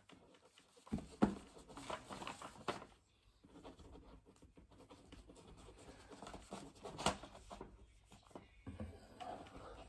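Quiet room sound with a few soft taps and faint paper rustling from a sheet of paper and a phone being handled. The sharpest taps come about a second in and again about seven seconds in.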